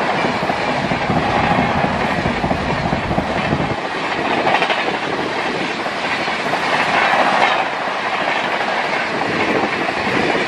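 Indian Railways express passenger coaches passing close at about 130 km/h: a continuous loud rush of wheels on rail, with clickety-clack over the rail joints. The deepest rumble eases a little after the first few seconds as the rest of the rake goes by.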